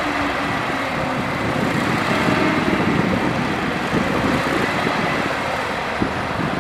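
Heavy diesel earthmoving machinery running steadily, growing a little louder about two to three seconds in.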